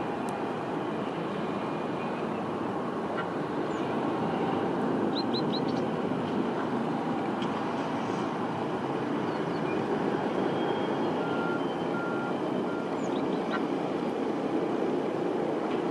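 Boeing 747-400 freighter's four jet engines at climb power just after takeoff: a steady, deep jet roar heard from the ground, growing a little louder about four seconds in.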